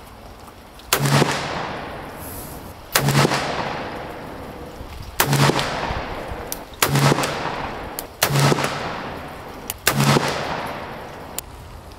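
Colt Cattleman 5.5-inch cap-and-ball revolver fired six times from a rest, about one shot every one and a half to two seconds, its chambers loaded full with 30 grains of Swiss 3F black powder. Each shot is a loud crack with an echoing tail.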